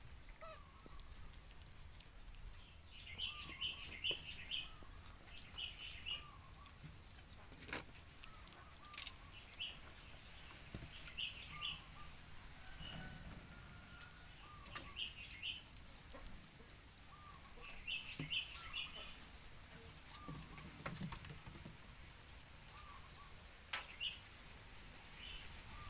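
Birds calling in the background: short clusters of high chirps every few seconds, with lower single notes between them. A couple of sharp knocks stand out, one about eight seconds in and one near the end.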